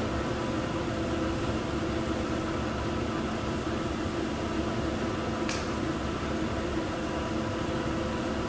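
Jet fabric-dyeing machinery running with a steady hum and several held tones. There is one short click about five and a half seconds in.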